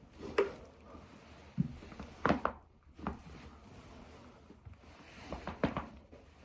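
Back joints cracking as the spine is bent over a stair: a series of sharp pops, some coming in quick clusters about two seconds in and again near the end.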